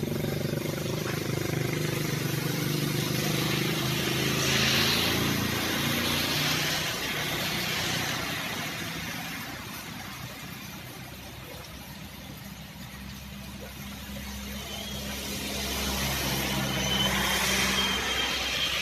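Motorcycles riding past on a flooded, rain-soaked road, their engines running and tyres hissing through the water, over a steady hiss of rain. One passes close near the end, the loudest moment.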